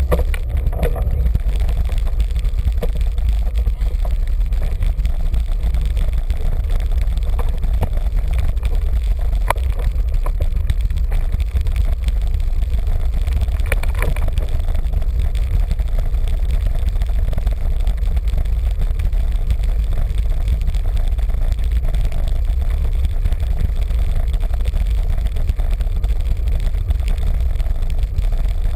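Wind buffeting the microphone of a camera mounted on a moving road bike, a steady low rumble mixed with tyre and road noise, with a couple of sharp knocks from bumps in the road around the middle.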